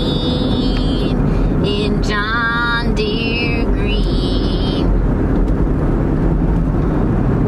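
Steady road and engine noise inside a moving car's cabin. Several short, high, wavering tones sound over it in the first few seconds, then only the road noise remains.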